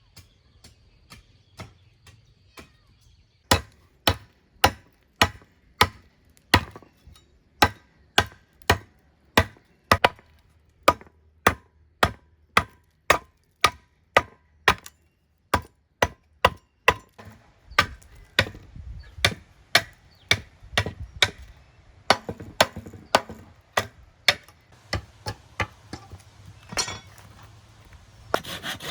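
A hand tool striking wood in a steady rhythm, just under two blows a second, starting a few seconds in after some light taps.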